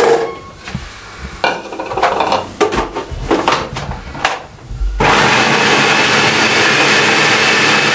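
A few knocks and clatters, then about five seconds in an electric food processor starts and runs steadily, chopping onion, green chillies, ginger and potato.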